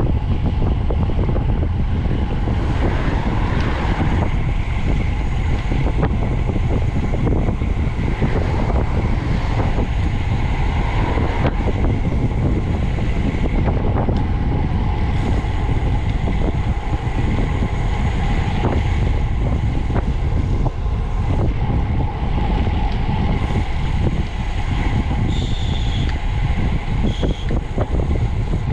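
Steady wind buffeting on the microphone of a camera riding on a moving bicycle, with road rumble underneath.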